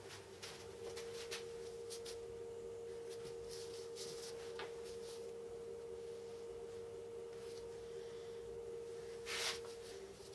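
A faint steady pure tone like a held note, with scattered light clicks and rustles of small parts being handled on paper, and one louder rustle near the end.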